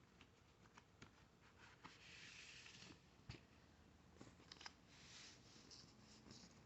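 Faint rustling and sliding of paper record sleeves being handled, with a few soft clicks and one small tap about three seconds in.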